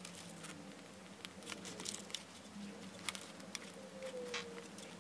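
Sharpie marker tip scratching and ticking as it is drawn across the ribbed plastic of a model rocket's corrugated section, with small irregular clicks from the fingers and paper.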